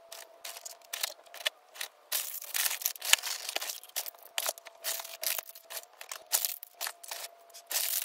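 Crinkling and rustling of a non-woven tote bag and the plastic toy packaging inside it as items are pulled out, an irregular run of quick crackles that goes on throughout.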